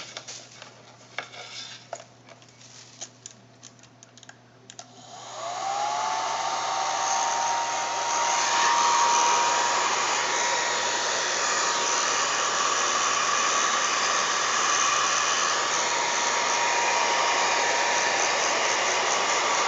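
A few light clicks, then about five seconds in a handheld hot-air blower is switched on: its motor whine rises as it spins up and settles into a steady blowing rush. The hot air is used to soften the adhesive so the phone's screen assembly will separate.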